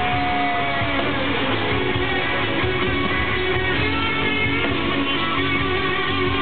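Live country band playing a guitar-led passage of the song, heard loud through a phone's microphone from the arena crowd, with a long held note bending down about a second in.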